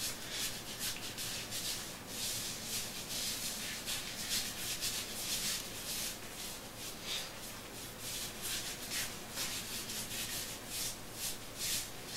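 Hands rubbing shaving lather over a freshly clipped, stubbly scalp: quick, uneven scratchy strokes, several a second.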